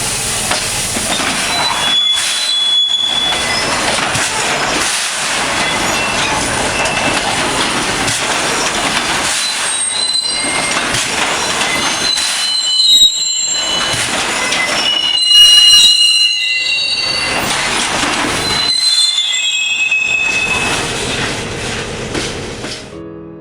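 Freight wagons rolling through a hump-yard rail retarder, the brake beams gripping the wheels with a loud grinding rush and repeated high-pitched squeals that come and go, the loudest about two-thirds of the way through.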